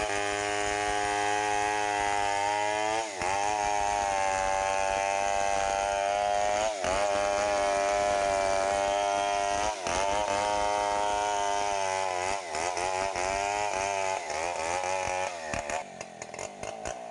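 Stihl 070 two-stroke chainsaw running at high revs, ripping lengthwise along a log to square it into a beam. The engine note dips briefly three times. In the last few seconds, as the saw reaches the end of the log, the revs turn uneven and stuttering and the note drops lower.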